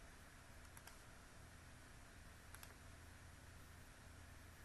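Near silence with faint computer mouse clicks, twice: about a second in and again just past the middle, each a quick pair of ticks.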